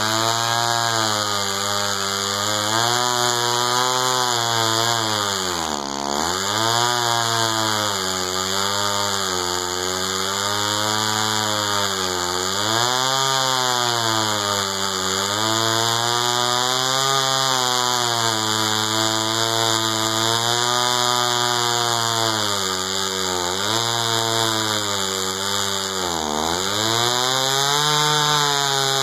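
Echo CS-500VL two-stroke chainsaw with a 20-inch bar cutting through a large red oak slab, its engine running at high speed under load. The pitch rises and falls as the cut bears on the chain, and the engine bogs sharply twice, about six seconds in and again a few seconds before the end.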